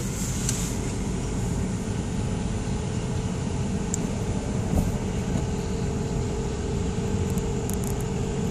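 Steady low rumble of a car's running engine and the traffic around it, heard from inside the cabin, with a steady mid-pitched hum over it.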